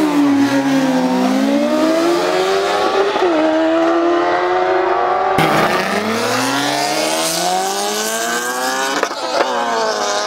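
Race engines at full throttle accelerating hard, their pitch climbing steadily. About five seconds in the sound cuts to a fresh climb, and near nine seconds a quick gear change drops the pitch before it climbs again.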